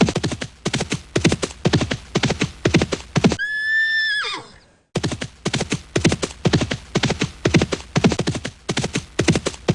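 Horse galloping, its hooves striking in a fast, even rhythm. About three and a half seconds in, the hoofbeats give way to a single high neigh that holds its pitch and then slides down. After a brief gap the galloping hoofbeats resume.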